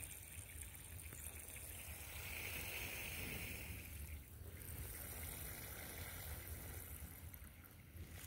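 Faint trickle of water seeping from drip-irrigation emitters into the soil, over a low steady rumble.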